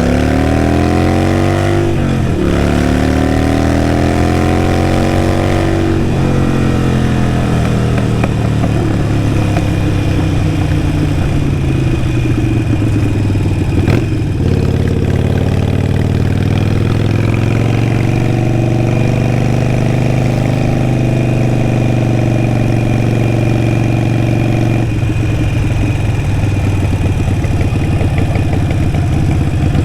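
Harley-Davidson Sportster 883 Iron's air-cooled V-twin through a Vance & Hines exhaust, under way: revs climb, drop sharply at a gear change about two seconds in, and climb again. The engine then slowly winds down, picks up again with a rising note, holds a steady pitch for several seconds, and drops off near the end.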